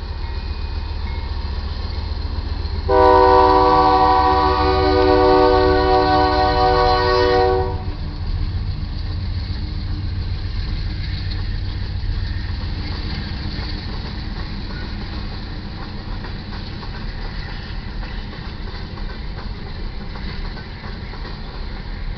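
Union Pacific freight train led by GE diesel locomotives pulling out: one long horn blast of several tones together, starting about three seconds in and lasting some four and a half seconds, over the steady low rumble of the diesel engines.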